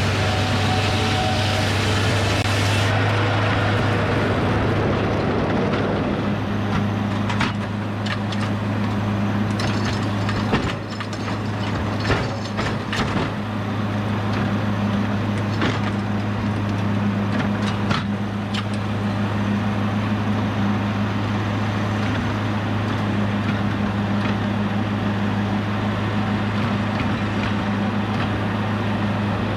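Edmiston hydraulic sawmill's engine running steadily, with the saw cutting through a red oak log for the first few seconds. The cut ends, followed by a series of sharp knocks and clanks from the mill.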